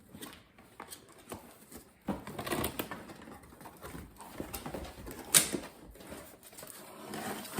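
A cardboard box being opened by hand: the flaps and packaging rustle and scrape, with scattered knocks and one sharp snap a little over five seconds in.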